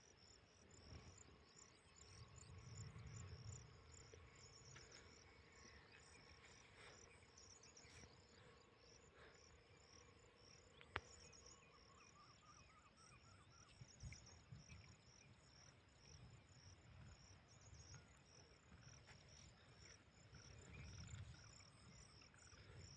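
Faint chorus of crickets chirping steadily and rapidly at a high pitch, with a few soft low rumbles and a single click about eleven seconds in.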